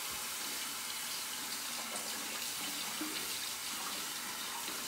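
Water running steadily from a tap into a bathroom sink.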